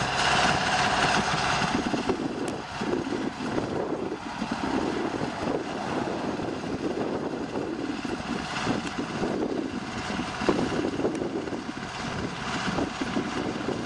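Strong, gusty thunderstorm-outflow wind buffeting the microphone in uneven rushes. In the first couple of seconds, the rushing noise of a vehicle that has just driven past fades away.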